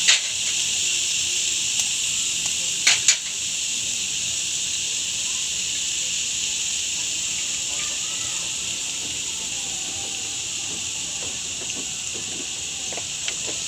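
Sisig sizzling on a hot iron sizzling plate: a steady high hiss that slowly fades a little. A sharp click at the start and a quick pair of clicks about three seconds in.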